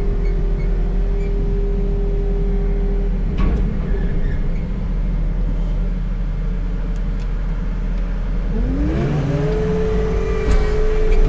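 Skid loader engine running under a steady whine, heard from inside the cab; the whine drops away about three seconds in and climbs back up in pitch about nine seconds in as the loader revs up, likely driving its hydraulic mower attachment.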